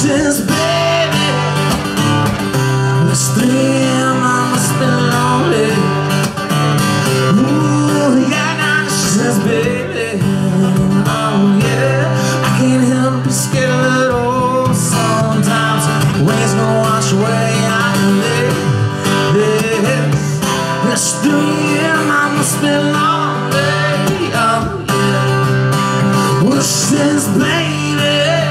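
Live acoustic guitar played steadily, with a male voice singing over it through a PA system.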